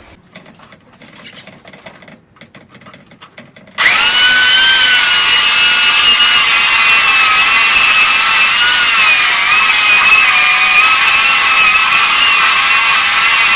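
Chainsaw cutting into a log at full speed. It starts abruptly about four seconds in and runs steadily, its pitch wavering slightly under load, after a few faint clicks.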